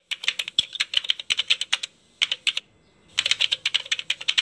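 Keyboard typing sound effect: rapid key clicks in three runs, broken by short pauses about two seconds in and again just before three seconds, timed to title text appearing letter by letter.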